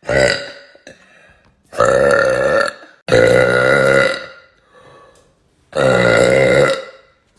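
A woman burping loudly four times: a short burp, then three long ones of about a second each, with short pauses between them.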